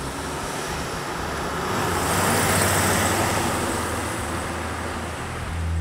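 1990 Jeep Wrangler with its 4.2-litre inline six driving past on the road, getting louder to a peak about two and a half seconds in, then fading as it pulls away.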